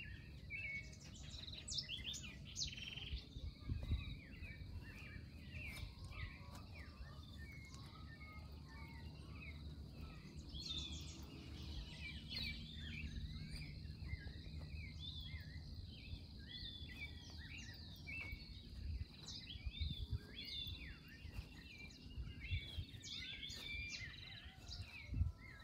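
Dawn chorus: many birds chirping and calling over one another, with a steady high insect-like whine running underneath.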